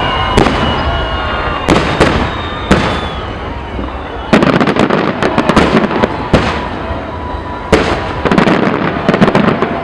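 Fireworks display: single loud shell bursts, then two long runs of dense rapid crackling pops, the first starting about four seconds in and the second near the end.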